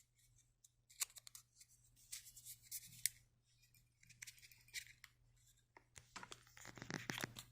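Faint handling noise of unboxing: scattered light clicks and short rustles of paper and cardboard packaging as the watch is lifted out and unwrapped. The rustling grows busier near the end.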